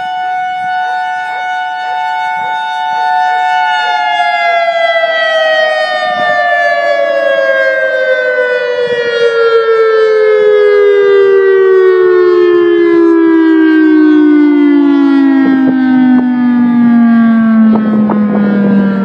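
EOWS-612 dual-tone electronic siren with its rotating horn array, driven by its original Siratone controller and running with several blown drivers. It holds a steady two-tone chord for about four seconds, then both tones slide steadily lower as the siren winds down, and it cuts off abruptly at the end.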